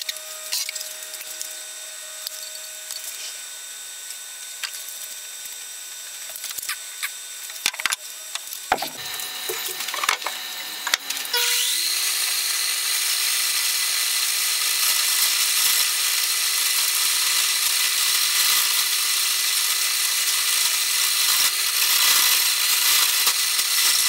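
Scattered knocks and clicks as the lathe's tool rest is handled. About halfway through, the Craftsman wood lathe starts with a motor whine rising in pitch as it spins up, then runs steadily. Near the end a turning tool is cutting the spinning wooden spindle.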